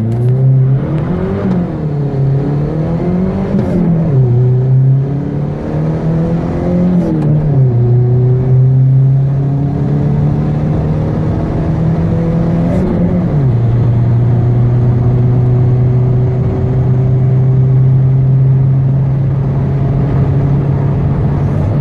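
Turbocharged Chevrolet S10 pickup's engine at full acceleration, its pitch climbing through the gears of a manual gearbox. The revs drop sharply at about four upshifts, each gear held longer than the one before, and the engine pulls steadily higher in the last gear.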